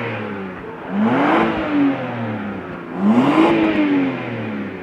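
BMW 320i engine being revved: the tail of one rev falls away, then two more revs about two seconds apart, each rising quickly in pitch and sinking slowly back toward idle.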